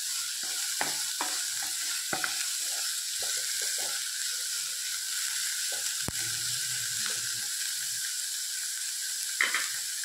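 Chopped onions and green chillies sizzling steadily in hot desi ghee in a kadhai on a high flame, while a wooden spatula stirs and scrapes them against the pan in short strokes. There is a sharp click about six seconds in and a louder stroke near the end.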